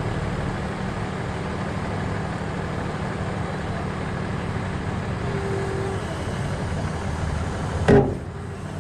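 A vehicle engine idling steadily, a low constant rumble, with one sharp knock near the end.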